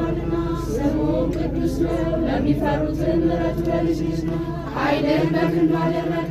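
Several voices chanting together in unison, singing an Ethiopian Orthodox hymn (mezmur) in long held notes, over a low steady hum.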